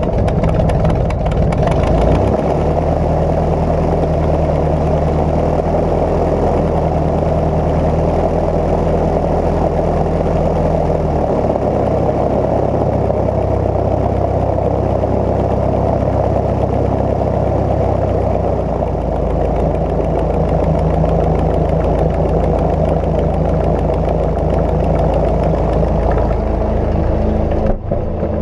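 Cozy Mk IV light aircraft's piston engine running steadily, its low hum stepping to a different pitch a few times as the power setting changes. There is a brief dropout near the end.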